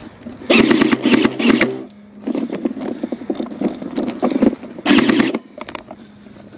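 Electric airsoft rifle firing two full-auto bursts: a rapid mechanical buzz of shots for a bit over a second, then a shorter burst about four seconds later. Softer handling and rustling in between.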